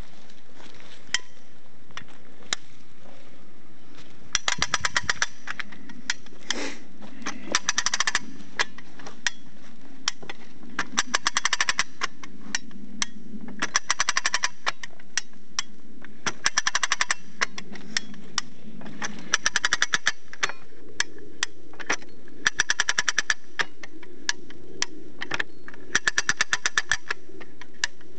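Trewhella monkey grubber, a lever-operated hand winch, being worked: bursts of rapid ratchet clicking about every three seconds as the pawls ride over the gear teeth on each lever stroke, with single clicks in between.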